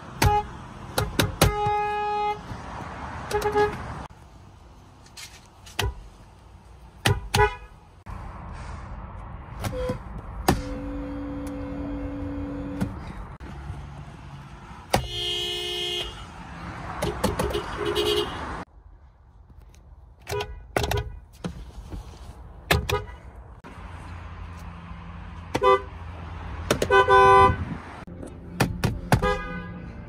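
Car horns from many different cars honked one after another, each pressed from the driver's seat. Most are short single or double taps. A few longer held blasts come near the middle.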